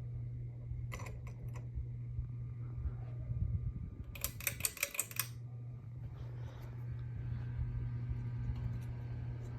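Harbor Breeze Pamlico ceiling fan running with a steady low motor hum. A few clicks come about a second in, and a quick run of sharp clicks follows about four seconds in.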